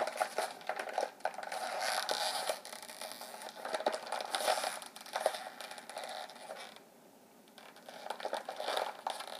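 Shiny BeanBoozled candy pouch crinkling and crackling as hands twist and pull at its sealed top, trying to get it open. Brief lull about seven seconds in.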